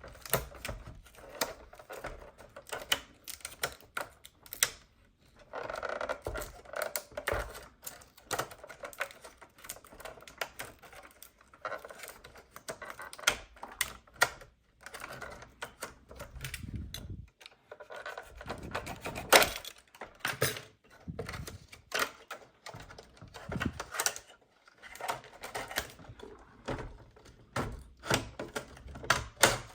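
Irregular clicks, taps and rustling of plastic toy parts and packaging being handled.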